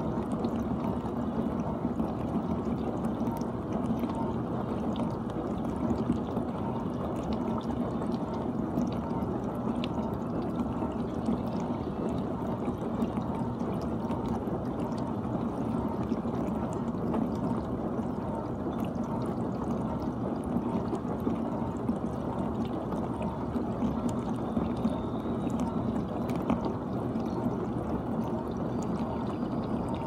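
GE dishwasher running mid-cycle: water spraying and sloshing inside the tub, steady, over a constant low hum.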